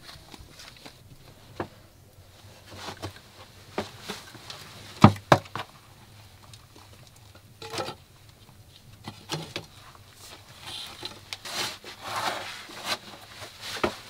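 Footsteps and scuffing on packed earth, with clothing brushing against the dirt walls, as a person climbs through a narrow underground tunnel opening. Scattered knocks, the loudest about five seconds in, and a longer stretch of rustling near the end.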